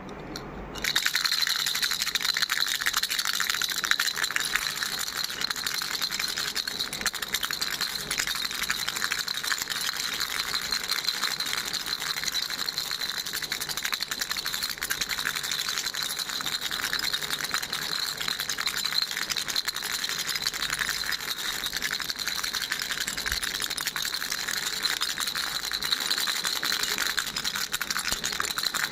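Baby rattle shaken without a break, a dense, fast rattling that starts about a second in and keeps an even pace.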